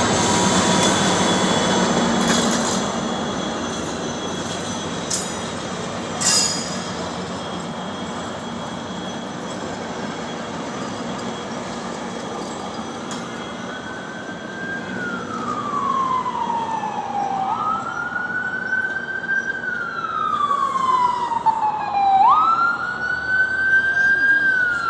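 A departing passenger train rumbles and rattles, its noise dying down, with a sharp knock about six seconds in. From about halfway, an emergency vehicle's siren wails and grows louder, each cycle rising quickly, holding and then sliding slowly down, about every four to five seconds.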